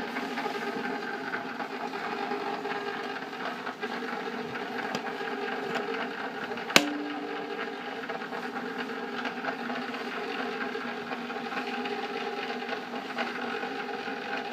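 Cuisinart electric ice cream maker running, just switched on: a steady motor hum as the frozen canister turns against the mixing blade. There is one sharp knock about seven seconds in.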